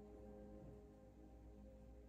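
Faint background piano music: a held chord slowly dying away.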